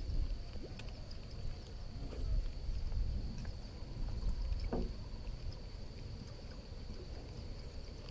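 Water lapping against a small aluminium boat's hull, with a low rumble from wind and water. A steady high-pitched drone sits over it, and there are a few faint clicks.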